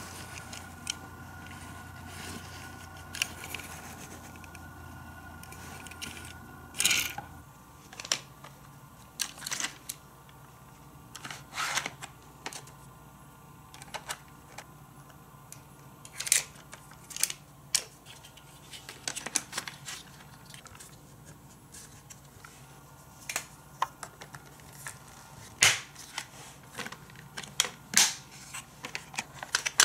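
Hard plastic pieces of a Matchbox Fire Station Cliff Hanger playset being handled and fitted together: irregular clicks, clacks and snaps, some sharp, with a faint steady hum for about the first seven seconds.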